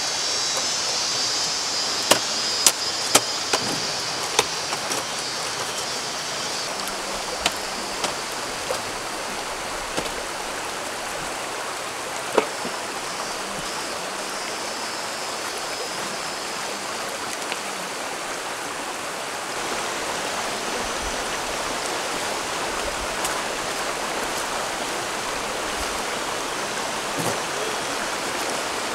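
Shallow rocky stream flowing steadily. Over it, a scatter of sharp metal clicks and knocks in the first dozen seconds as a folding camp table is opened out.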